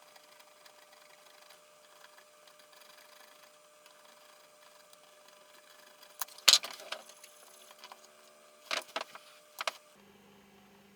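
A small hand tool scraping the carbon coating off a circuit-board contact: a few short, sharp scratches about six seconds in and again near nine seconds, over a faint steady hum.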